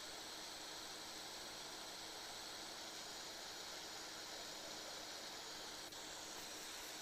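Steady hiss of room noise with no snoring or breathing rhythm to be heard, and a single faint click about six seconds in.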